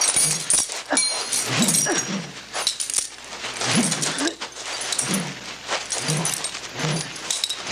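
Hand-to-hand fight: short grunts and hard breathing about once a second, mixed with the slaps and thuds of blows and scuffling.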